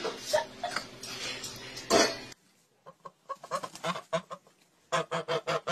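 Domestic geese giving short, clipped calls, scattered at first and then in a quick run of about five a second near the end. Before them, in the first two seconds, comes a noisy stretch ending in a thud.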